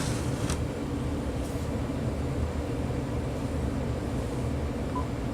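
Steady low rumble of background noise, with a faint click about half a second in.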